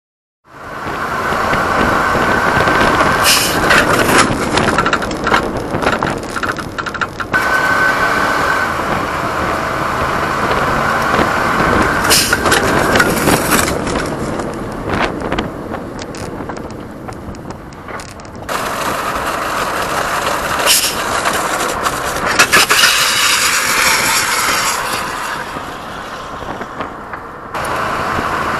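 Loud rushing wind and road noise from a motorcycle drop test, with scraping, knocks and clatter as the motorcycle goes down on its side and slides along the pavement. The noise changes abruptly twice as one run cuts to the next.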